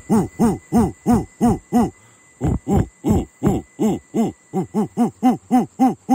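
A man's voice making short, pitched 'ho-ho' sounds from the belly, about three a second, with a brief pause about two seconds in: a deliberate rhythmic laugh done as a vocal exercise.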